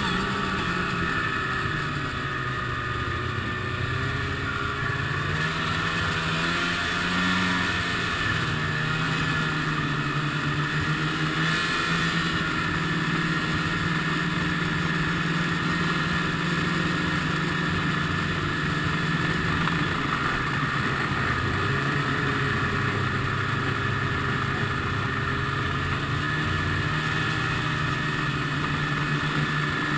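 Ski-Doo MXZ two-stroke snowmobile engine running at trail speed. Its pitch dips and recovers over the first several seconds as the throttle eases and picks up, then mostly holds steady.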